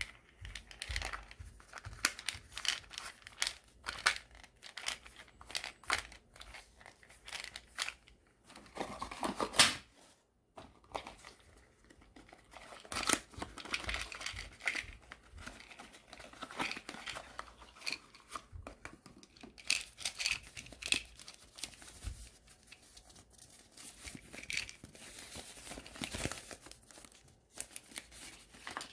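Medicine packaging being handled and opened by hand: irregular crinkling and crackling of wrapping, with a longer loud tear about nine seconds in.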